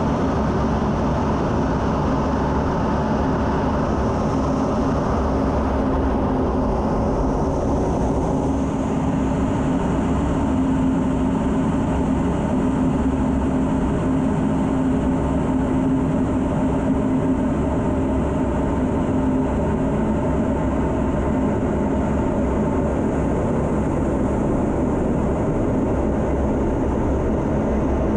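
Steady rumble and rush of engine and airflow noise inside an F-16's cockpit in flight. A low steady hum stands out from about eight seconds in until about twenty seconds.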